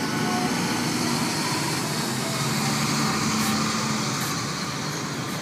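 A line of tow trucks driving slowly past, engines running, giving a steady traffic noise.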